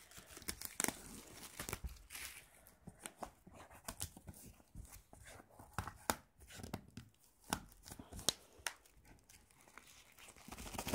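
Plastic shrink-wrap being peeled and torn off a mediabook case by hand: irregular crinkling and crackling with many small sharp clicks.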